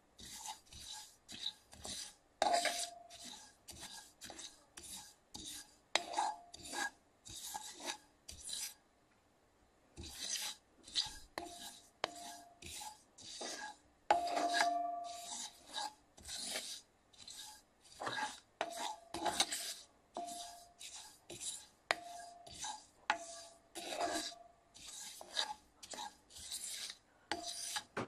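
A wooden spatula stirs sesame seeds being dry-toasted in a cast iron skillet. It makes repeated scraping strokes, about two a second, each with a rush of seeds sliding over the iron, and some strokes leave a short ring from the pan. The stirring pauses briefly about a third of the way through.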